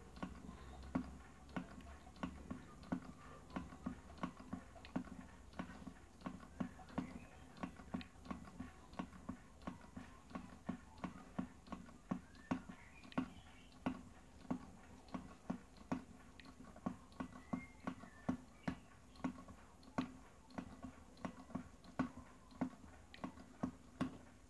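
Low-temperature-difference Stirling engine running on ice, its mechanism ticking about three times a second as the flywheel turns, over a faint steady hum. The engine is driven only by the temperature difference between its cold base and warmer top plate.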